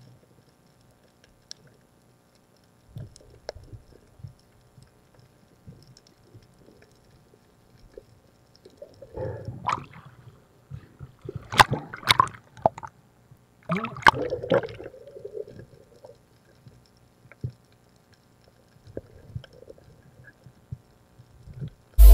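Water gurgling and sloshing around an underwater camera, with scattered faint clicks and a louder irregular stretch of gurgles from about nine to fifteen seconds in. A sudden loud hit comes right at the end.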